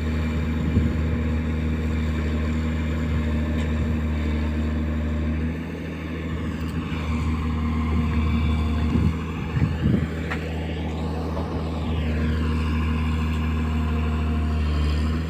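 Excavator's diesel engine running steadily under working load, with a brief dip in level about five seconds in. A few knocks come about nine seconds in, and a whine rises and falls around ten to twelve seconds in.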